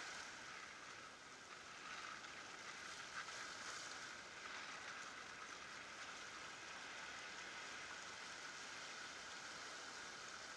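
Gentle surf washing over shoreline rocks, a faint steady hiss with small swells.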